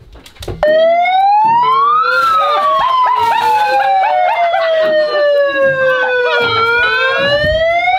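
Handheld megaphone's siren setting wailing loudly, starting about half a second in: it rises, falls slowly over several seconds, then rises again. Water splashes onto a bed about two seconds in.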